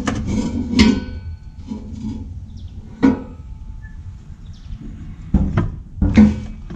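About five metallic clanks and knocks, some with a short ring, from the Audi Q7 TDI's stock steel exhaust and rear muffler section being worked loose and lowered onto a floor jack.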